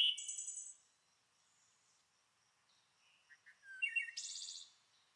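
Birds chirping: a quick cluster of high chirps at the start and another about three to four and a half seconds in, with a faint lull between.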